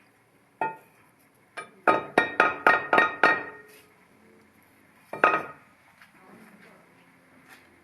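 Metal striking metal with a ringing clink: two single knocks, then a quick even run of about seven taps, then one more knock.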